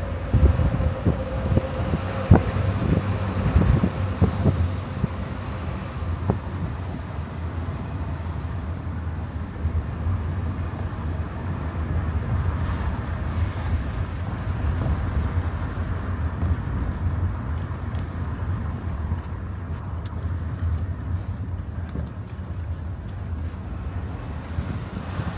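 A moving car's steady low road rumble from tyres and engine, with a few sharp knocks in the first few seconds.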